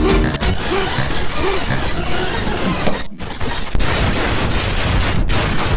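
Heavily distorted, effects-processed meme audio: loud, harsh crackling noise with faint traces of a voice buried in it. It cuts out sharply for an instant about three seconds in and again just past five seconds.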